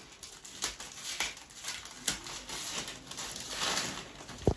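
Gift-wrapping paper being torn and crumpled off a package: irregular crackling and rustling, busiest about three seconds in, then two quick thumps near the end.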